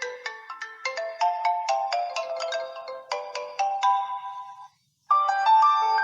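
Preset ringtones playing on a BQ-5007L Iron smartphone: a quick melody of short struck notes that stops about three-quarters of the way through, then after a brief silence the next ringtone starts with longer held notes.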